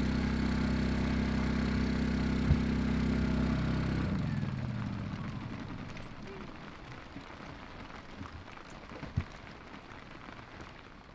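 A steady low motor hum that winds down in pitch and stops about four seconds in, leaving a fading hiss with a few light knocks.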